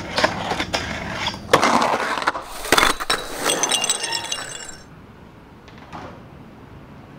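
A run of sharp clanks and crashes with a bright ringing clink about three and a half seconds in. It all cuts off suddenly at about five seconds, leaving a faint steady outdoor background.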